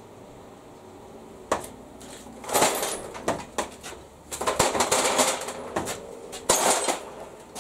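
Rummaging through a drawer or box of metal tools while searching for a socket extension bar: irregular bursts of clattering and rattling, with a sharp click about one and a half seconds in.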